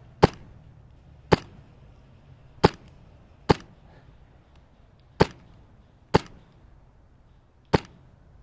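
Wolverine MTW high-pressure-air airsoft rifle, set up as a designated marksman rifle, firing single shots: seven sharp cracks at irregular gaps of about one to one and a half seconds.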